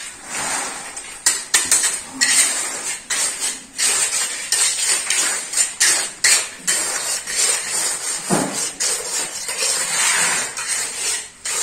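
A steel hand trowel scraping and knocking as it spreads wet, gravelly concrete over a rebar grid. There are repeated irregular sharp clicks and scrapes throughout, and concrete slides out of a bucket near the start.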